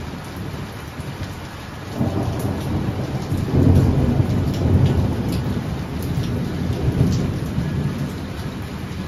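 A thunderclap in heavy rain: a low rumble breaks out about two seconds in, is loudest a little after that, swells once more near the end and then eases, over steady rain with drips splashing.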